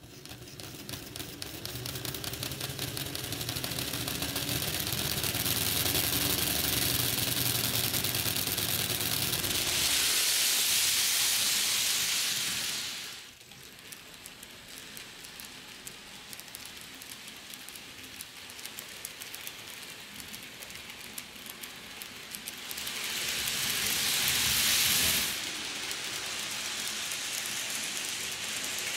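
Bachmann N-scale Empire Builder electric model train running on its track: a steady whirr from the small motor with fast, even clicking of the wheels on the rails. It grows louder twice, about ten seconds in and again near twenty-four seconds, and each time drops off sharply.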